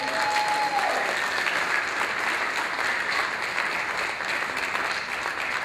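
Congregation applauding steadily, with a short held call-like tone over the clapping in the first second.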